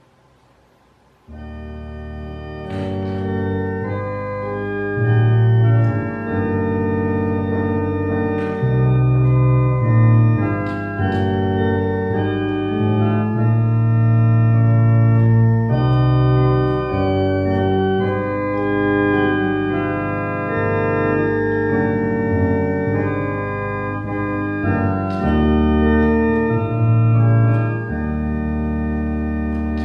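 Church organ playing a hymn in sustained chords over a held bass line, starting about a second in after near silence.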